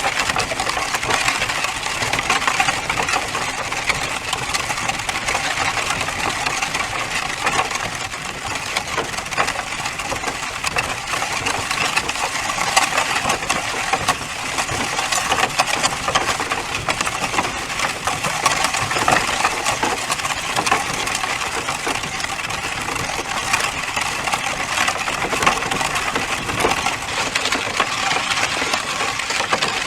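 Horses: a steady, dense clatter of clicks and metallic clinks that holds at an even level throughout.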